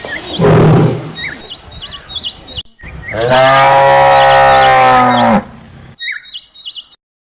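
A cow mooing: a short, rough call near the start, then one long call of about two seconds that drops in pitch as it ends. Small birds chirp repeatedly in the background.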